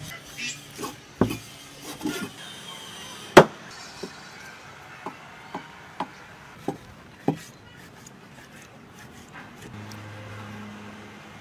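Cleaver chopping raw chicken on a thick wooden chopping block: a dozen or so sharp, irregular knocks over the first seven seconds, the loudest about three and a half seconds in, the later ones lighter.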